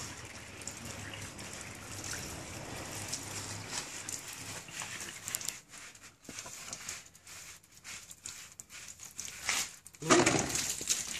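Water from a garden hose running over a wet dog's coat and splashing on concrete. It flows steadily at first, breaks up into patchy splashes and drips midway, then gets louder about ten seconds in.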